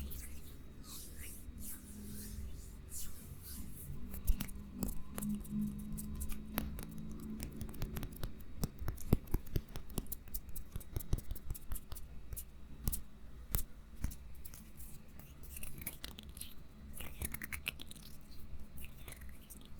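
Close-miked handling of a small object: a run of irregular sharp clicks and scratchy taps, densest in the middle.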